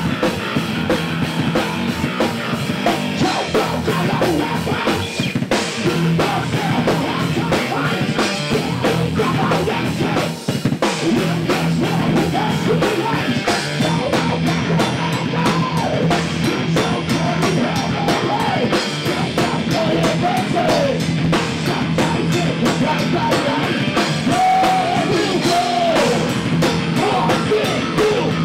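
Heavy metal band playing loud and live: two electric guitars, bass guitar and a drum kit, with a singer's voice over them in the later part.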